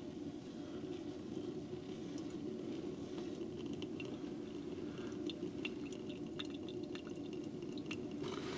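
A steady low hum with scattered faint ticks and clicks over it.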